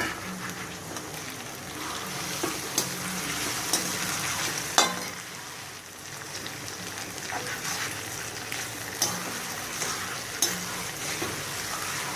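Shredded chicken and vegetables sizzling in ghee in a kadai while being stirred, with scattered clicks and scrapes of the stirring utensil against the pan. The sharpest knock comes about five seconds in.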